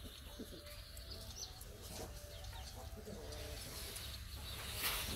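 Faint bird calls over a low steady background hum, with a few soft scattered clicks.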